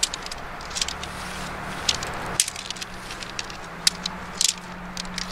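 Jointed tent pole sections clicking and clinking as they are pulled out of a collapsed tent and taken apart, a sharp click every second or so over a rustle of tent fabric.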